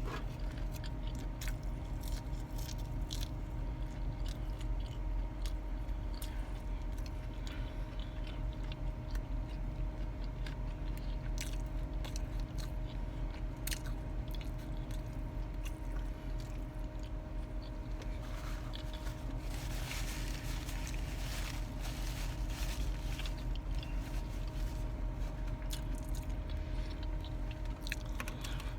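A person chewing and biting into food close to the microphone, with many short crunches and mouth clicks over a steady low hum. About twenty seconds in there is a burst of denser rustling.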